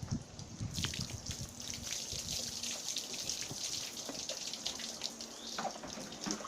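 Water running and splashing while a pug puppy is bathed, starting about a second in and easing off after about four seconds.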